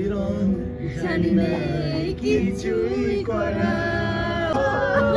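A small group singing together, a man's voice most prominent, holding one long note about three seconds in.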